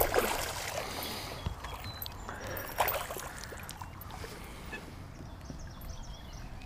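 A hooked bass splashing at the surface as it is reeled in, followed by a sharp knock about three seconds in and quieter water sounds while it is drawn to the boat.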